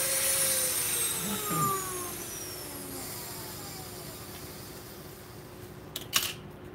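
Small corded rotary tool winding down after cutting plastic: its high motor whine falls steadily in pitch and fades over a few seconds. A couple of sharp clacks near the end, as plastic pieces are handled on the bench.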